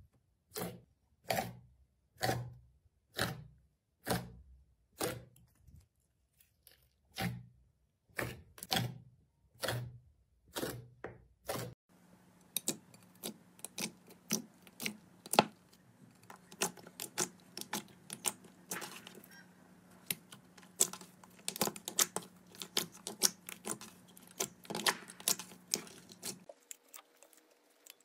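Slime squished and pressed by hand, a slow regular squelch about once a second. About twelve seconds in it changes to quick crackling and popping with a faint steady hum underneath.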